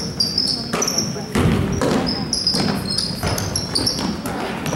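Basketball game on an indoor court: a basketball bouncing on the hardwood, many short high squeaks, and the indistinct voices of players and spectators echoing in the gym.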